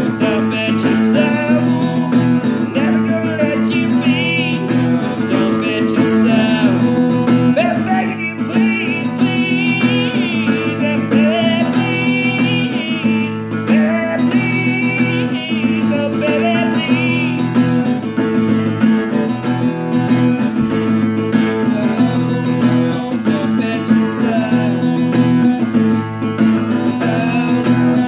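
Acoustic guitar strummed in a steady rhythm, with a man singing over it through much of the first half.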